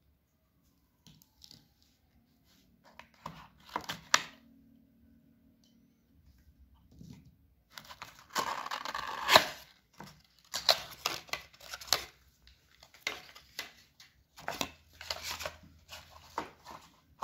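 Unboxing noises: packaging being torn and rustled, with a louder tear lasting over a second about eight seconds in, then a run of short scrapes and taps as the cardboard box pieces are handled.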